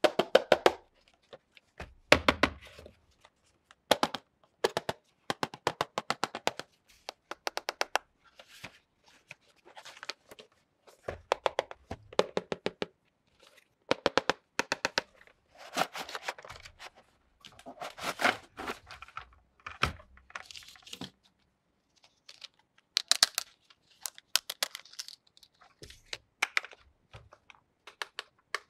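Hands unboxing a plastic toy container truck: cardboard packaging handled, torn and crinkled, with many sharp clicks and knocks of hard plastic parts in quick, irregular runs.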